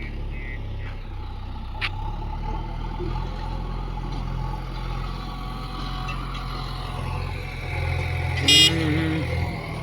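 A JCB backhoe loader's diesel engine running steadily. There is a single sharp click a couple of seconds in, and a brief loud, high-pitched blast about a second and a half before the end.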